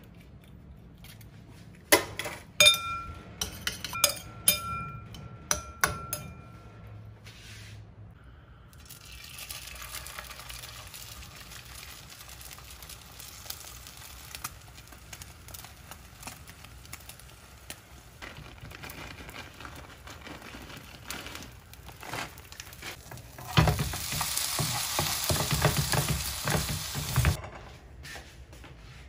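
A utensil beating egg in a ceramic bowl, clicking against the bowl with short ringing tones. From about nine seconds in, egg mixture sizzling in a frying pan, louder for a few seconds near the end.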